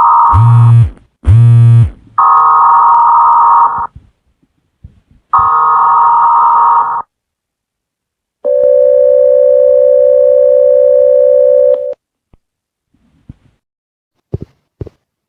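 Mock Emergency Alert System alert tones: three bursts of a buzzy, data-like header squawk near 1 kHz about three seconds apart, with two short low buzzes in the first two seconds, then a steady attention tone held for about three seconds, followed by two faint clicks near the end.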